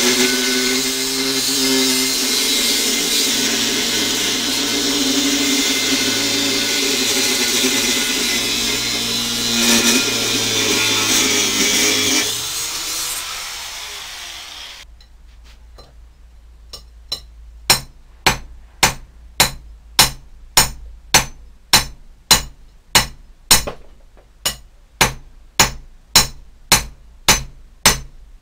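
Angle grinder cutting a steel bar held in a vise, running steadily, then winding down about twelve seconds in. After a short lull, hammer blows on steel in a steady rhythm, about two a second.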